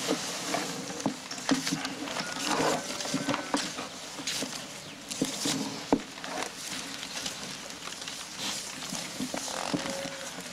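Scattered small knocks and clicks over a steady hiss of room tone, from a film scene's soundtrack of men sitting at a table with cups and bottles.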